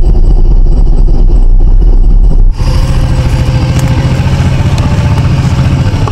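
Motorcycle engine running at low revs up close, a steady pulsing rumble. It sounds dull and muffled for the first two and a half seconds, then clearer after a brief dip, with a steady low hum.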